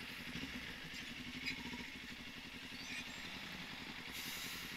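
Steady hum of a vehicle's engine and road noise, heard from inside the moving vehicle, with a faint low drone.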